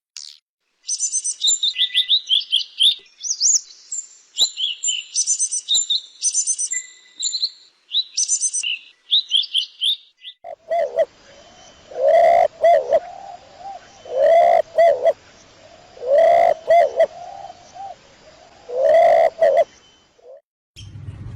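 Two bird recordings one after the other: first a small songbird singing quick, high-pitched phrases for about ten seconds, then a dove cooing in low repeated phrases about every two seconds.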